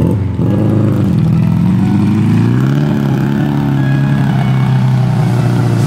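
Suzuki Katana 4x4 engine pulling under load on a dirt trail. Its pitch rises and falls over the first few seconds, then holds steady.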